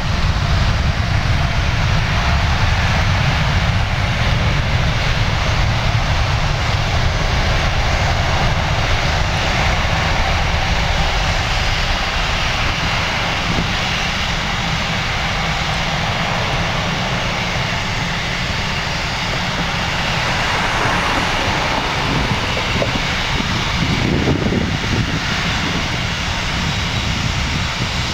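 Boeing 777-200's General Electric GE90 jet engines running with a steady, loud roar and a deep rumble underneath.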